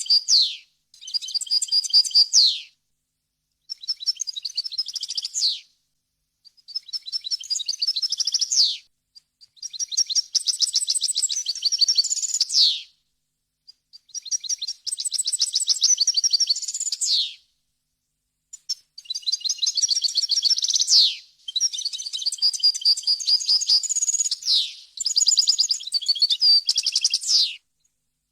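European goldfinch singing: a run of rapid, twittering, trilled phrases, each one to four seconds long and ending in a quick falling note, separated by short silent pauses.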